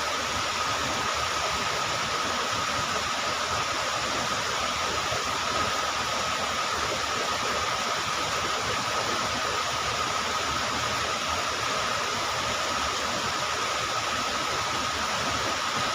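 Steady rushing of river water, even and unbroken, with a thin steady high tone running through it.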